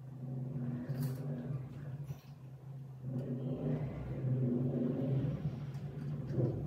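Low, steady hum of a motor or fan running, swelling and easing in level.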